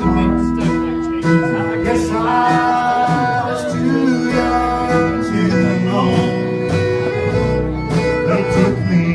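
Live traditional country band playing an instrumental break between verses, a lead instrument holding long notes over acoustic guitar and upright bass.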